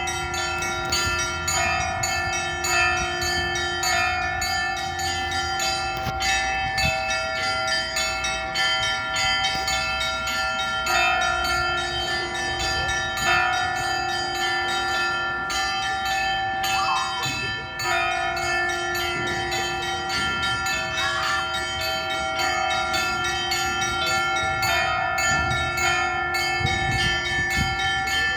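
Church bells ringing a continuous peal: several bells of different pitches struck over and over in quick succession, their tones overlapping and ringing on.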